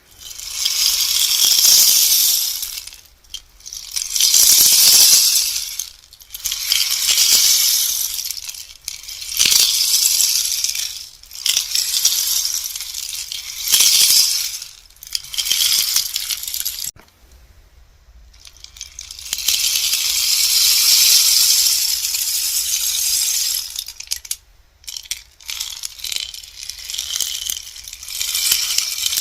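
Bamboo rainstick turned over again and again, each turn a trickling, rattling hiss of the fill running down the tube, some short and some lasting several seconds, with a pause of about two seconds midway.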